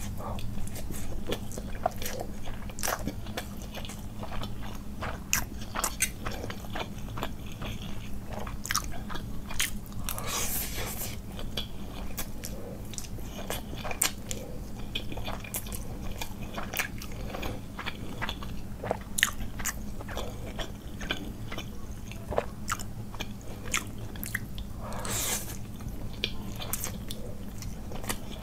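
Close-miked chewing and slurping of instant masala noodles, full of sharp wet mouth clicks, with a few longer slurps about ten seconds in and near the end. A steady low hum runs underneath.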